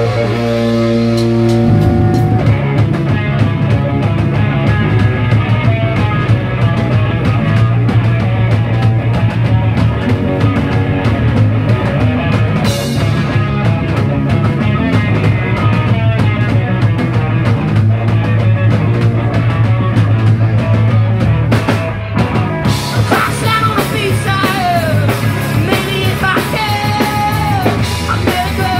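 Rock band playing live: electric guitar, bass and drum kit. Sustained guitar chords open it, and the full band with drums comes in about two seconds in. Near the end the band thins and a lead line with bending notes comes through.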